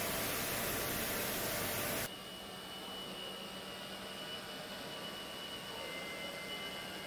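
Car assembly plant machinery: an even hiss that cuts off abruptly about two seconds in. It gives way to a quieter factory-hall hum with steady high and low tones.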